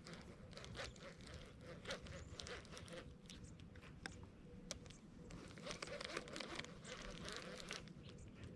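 Faint scattered clicks, scrapes and crunching, busier in the second half.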